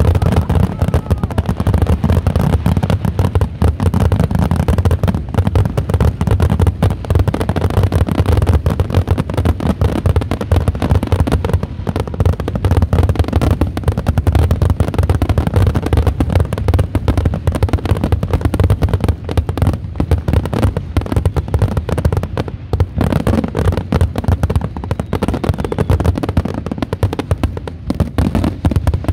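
Aerial fireworks barrage: shells bursting in rapid, unbroken succession with dense crackling and a low booming rumble.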